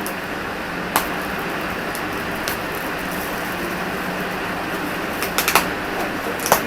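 Gift packaging being pulled and torn open: scattered crackles and snaps, a cluster of them near the end, over a steady fan-like hiss.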